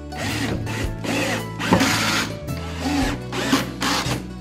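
12V cordless drill-driver driving screws up into a shelf, in several short runs, over background music.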